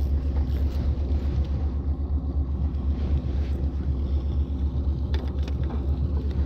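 A boat engine running steadily at idle, a low, evenly pulsing rumble.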